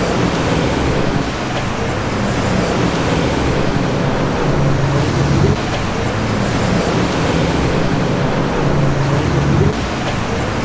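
Steady road traffic noise from cars passing through a busy city intersection.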